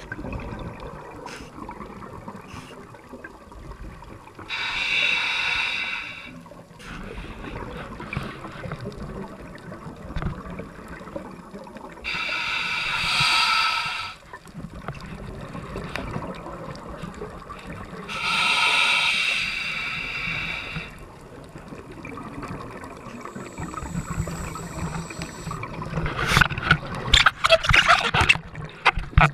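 Scuba diver's exhaled bubbles from the regulator heard underwater: three hissing, bubbling bursts of about two seconds each, roughly every seven seconds, over a low underwater rumble. Near the end a dense run of crackling and splashing water noise.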